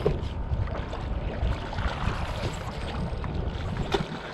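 Small waves lapping against paddleboard hulls, with wind rumbling on the microphone. A short, sharp noise comes about four seconds in.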